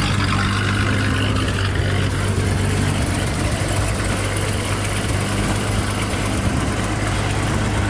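A vehicle engine running steadily at an even, low speed, with a constant low hum.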